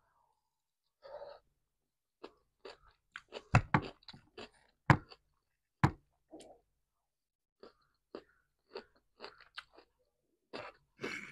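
Close-up chewing of a creamy vegetable salad eaten from a fork: soft, wet crunches and mouth clicks at an irregular pace.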